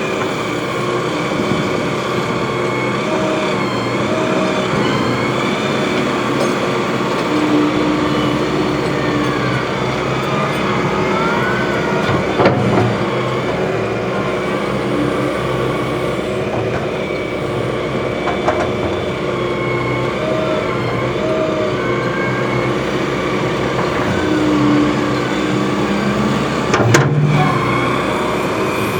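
Diesel engines of Hydrema 906D backhoe loaders running under working load, the pitch shifting up and down as they dig and move dirt. There are two sharp knocks, about twelve seconds in and near the end.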